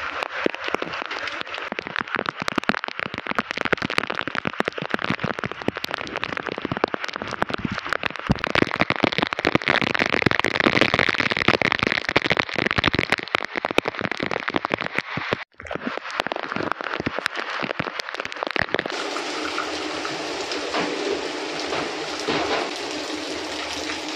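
Heavy rain pouring down, with drops striking close by as a dense crackle. About 19 seconds in it gives way to a steadier, smoother hiss of rain.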